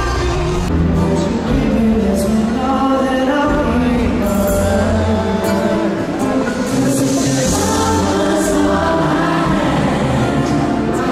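Live pop concert in an arena: a singer with a band and guitars performing, with more voices singing along.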